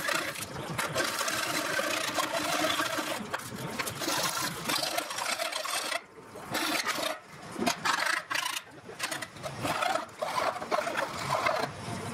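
Hand file rasping along the edges of a thin sheet-metal bracket, deburring it: continuous strokes at first, then separate strokes with short pauses in the second half.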